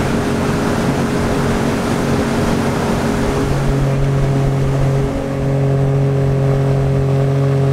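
Mercury jet outboard motor pushing an aluminium jon boat under way at a steady speed, with wind and water rushing past. The engine note dips briefly about five seconds in, then holds steady again.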